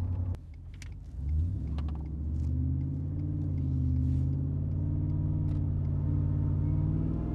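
Roush-supercharged 5.0-litre V8 of a 2020 Ford F-150, heard from inside the cab. It drops back briefly just after the start, then comes back on throttle about a second in and runs loud under load with a deep, even drone.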